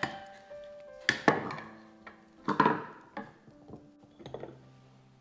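A handful of separate wooden knocks and taps of kitchen utensils, two close pairs followed by a few softer ones, over faint background music.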